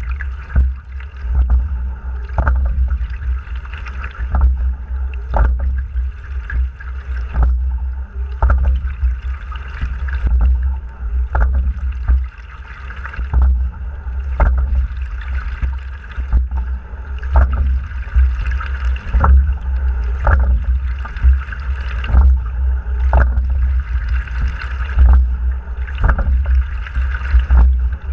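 A Fluidesign single scull being rowed: sharp knocks from the oars and rigging come about once a second with the stroke, over water rushing along the hull. A heavy low wind rumble sits on the boat-mounted microphone.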